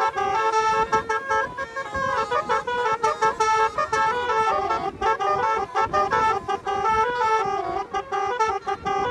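Basuri telolet horns on cars playing a fast melody, stepping quickly from note to note with several tones sounding together, without a break.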